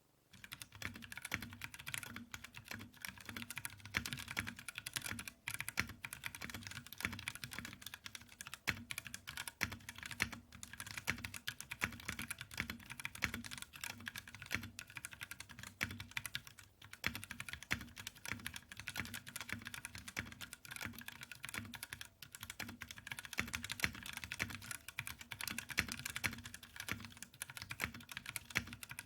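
Continuous fast typing on a mechanical keyboard with Outemu Purple light tactile switches in an aluminium case and plate, a dense stream of key clicks. The switches sound tinny and hollow, which makes them sound cheap.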